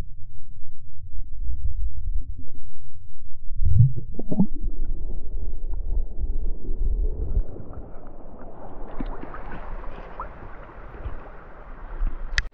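Muffled water sloshing and handling noise at the stream's surface, with a splash about four seconds in; after it the rush of the flowing stream grows clearer, and a sharp click comes near the end.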